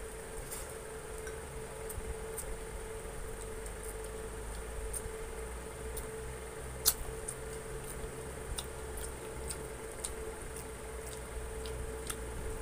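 Eating sounds of chicken and rice eaten by hand: scattered small clicks and wet smacks of chewing and picking at the meat, one sharper click about seven seconds in, over a steady hum.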